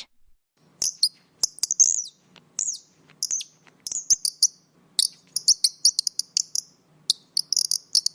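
Kingfisher calling: shrill, high-pitched calls, many short sweeping notes given in quick irregular clusters.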